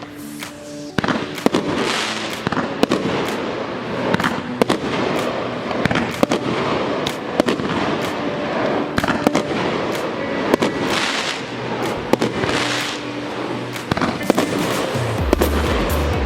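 A 1.25-inch, 19-shot consumer fireworks battery (cake) firing shot after shot, about one a second: sharp reports over continuous crackling from the bursts. Music plays underneath.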